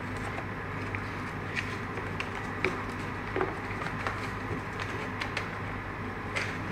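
Paper packaging being handled: tape peeled off a black paper wrapper, then the wrapper and a white paper sheet unfolded, giving soft rustles and scattered small crinkles and ticks over a steady low hum.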